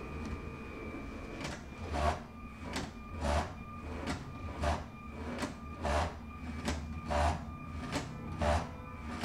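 LEGO SPIKE Prime robot driving forward and back in short repeated pushes against the step counter mission model. A clacking knock comes about every two-thirds of a second over a faint steady motor whine, starting about a second and a half in.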